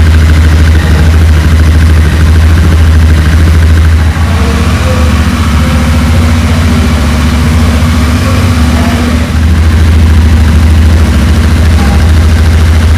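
Royal Enfield Interceptor 650's parallel-twin engine running loudly and steadily through its twin exhausts, mostly at idle, with small dips in level about four and nine seconds in.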